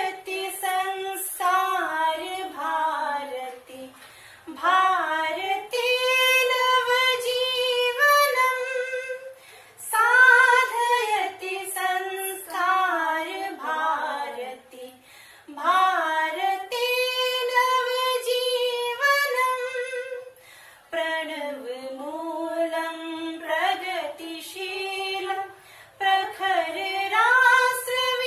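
A female voice singing a dhyeya geet unaccompanied, in sung phrases of a few seconds with short breaks between them.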